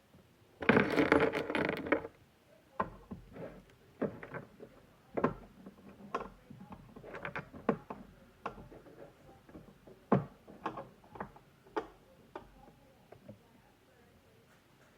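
Cardboard box and plastic packaging of a Funko Pop figure being handled: a second-long burst of rustling and crinkling near the start, then scattered light taps and clicks.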